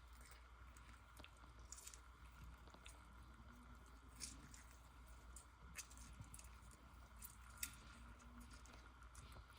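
Near silence: a faint steady low hum with scattered faint clicks and crackles at irregular times.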